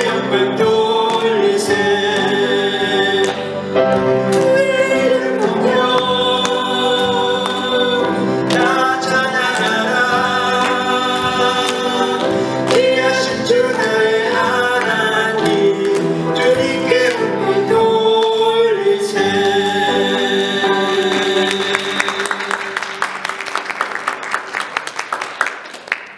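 A man and a woman singing a duet with musical accompaniment. Near the end the song closes and applause rises, then fades.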